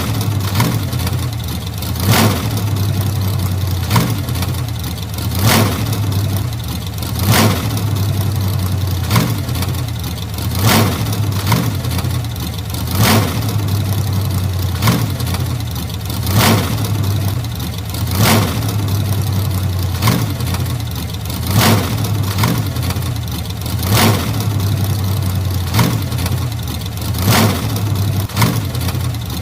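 1940s car engine running at idle with a steady low hum, broken about every one and a half to two seconds by a sharp click or pop.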